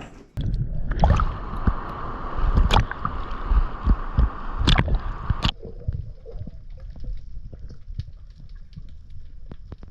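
Water sloshing and gurgling, with scattered clicks and knocks. A louder stretch cuts off suddenly about five and a half seconds in, leaving quieter ticking and lapping.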